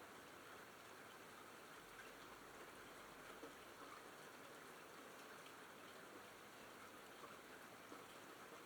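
Faint steady rain falling, with scattered individual drops ticking.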